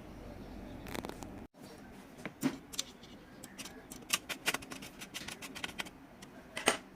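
Irregular small clicks and taps of hard plastic and metal parts being handled, as during computer disassembly, loudest about a second in and again near the end.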